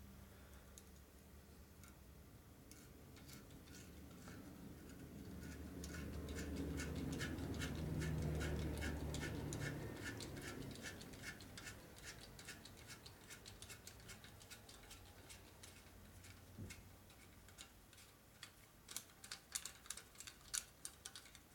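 Hand ratchet clicking in a rapid, even run as it turns a tap into a pre-drilled hole in a cast-iron Ford flathead block, cutting threads for a Lock-N-Stitch crack-repair pin. A low hum swells and fades in the middle.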